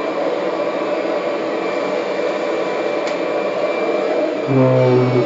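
Kirby Generation 6 upright vacuum cleaner running steadily. About four and a half seconds in, a deep steady drone comes in over it.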